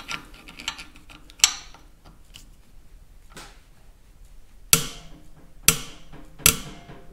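Corroded idle adjusting screw in a Farmall M carburetor cracking as it is forced round by a screwdriver turned with an adjustable wrench. There is one sharp snap about a second and a half in, then four loud sharp snaps about a second apart in the second half, each with a short ring. The snaps are the rust in the threads breaking loose.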